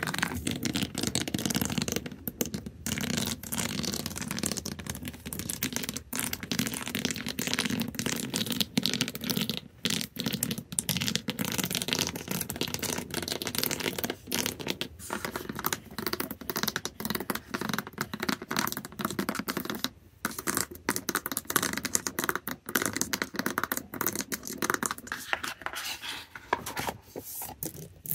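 Backs of fingernails scratching and flicking rapidly across a surface, a dense crackly scratching with many fine clicks and a few brief pauses.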